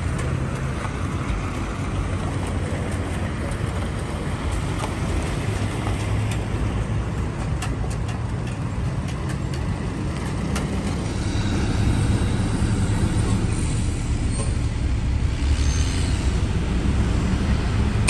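Road traffic noise: vehicles running on a road, a steady low rumble that grows a little louder about twelve seconds in.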